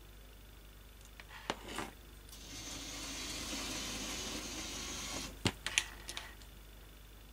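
The small electric motor of a PIKO DB118 N gauge model diesel locomotive, test-run with its spindles freshly oiled, running with a steady rough whirr for about three seconds. Sharp clicks of handling the chassis come just before it starts and just after it stops.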